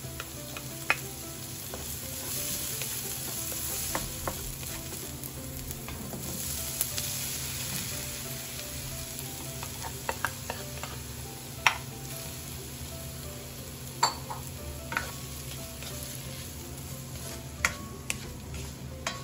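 Onion and garlic sizzling in oil in a nonstick wok while diced pork offal is tipped in and stirred. The sizzle is louder in the first half, and a few sharp clicks of the utensil against the pan stand out.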